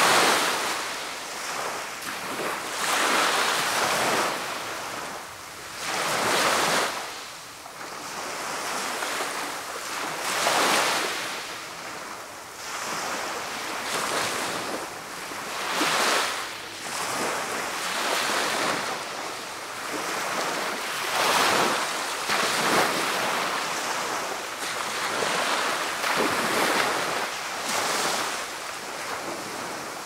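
Small sea waves breaking and washing up the beach, a hissing surge that swells and falls back every three to five seconds.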